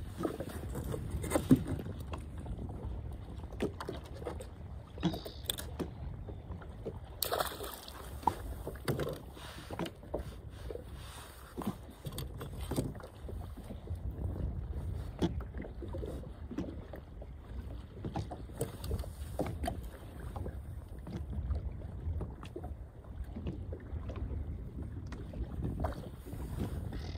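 Small boat rocking on the water: water slapping the hull with many irregular knocks and clicks over a steady low wind rumble.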